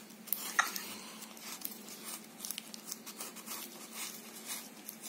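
Paper wipe rustling and scraping across skin as a gloved hand wipes off a layer of cream, with a few sharp clicks in the first second.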